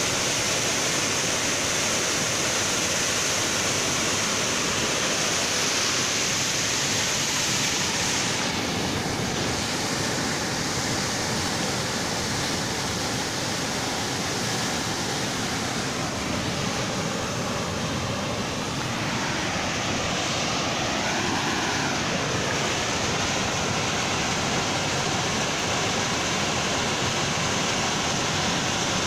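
Steady rushing of a swollen, muddy river in flood, its fast water churning along a rock embankment.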